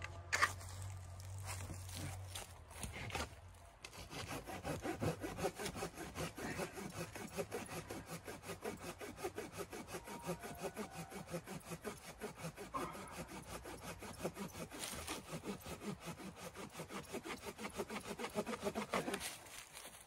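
Hand saw cutting wood in steady back-and-forth strokes, beginning about four seconds in and stopping shortly before the end.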